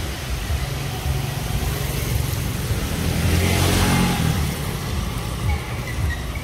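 A motor vehicle passing on a wet street: its engine hum and tyre hiss swell to a peak a little past halfway, then fade, over a steady background hiss.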